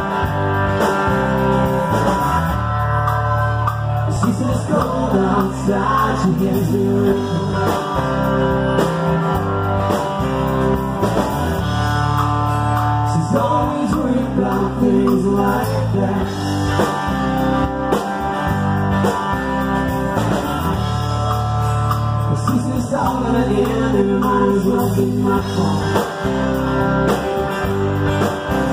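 Live rock band playing amplified through a PA: electric bass, electric guitar and acoustic guitar, with a man singing lead in phrases.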